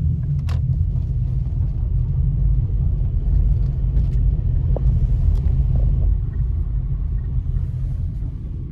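Car engine and road rumble heard from inside the cabin while driving slowly, a steady low drone that eases off near the end as the car slows.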